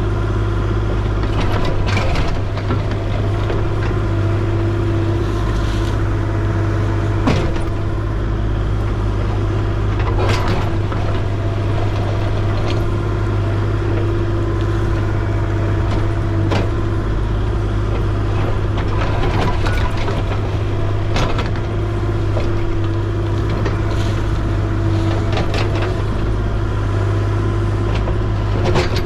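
Excavator engine running steadily at a constant pitch, with scattered short knocks and clanks.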